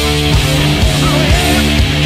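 Heavy rock music with distorted electric guitar over a steady drum beat, and a bending lead guitar line about a second in.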